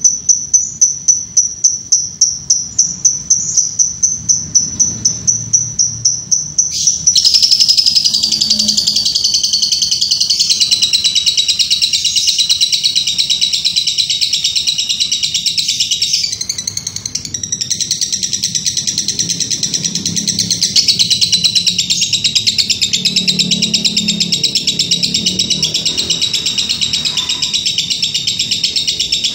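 A songbird of the kind kept for Indonesian singing contests, singing loudly: first a rapid run of one high note repeated about four times a second, then from about seven seconds in a continuous, busy song of many mixed high notes.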